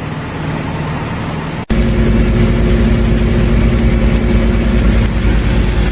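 A large engine running steadily. It comes in abruptly about two seconds in, loud and even, after a quieter rumbling noise.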